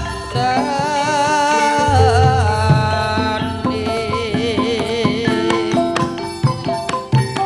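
Javanese gamelan music: a sinden's long, wavering sung line over kendang drum strokes, with the drumming getting busier after about four seconds.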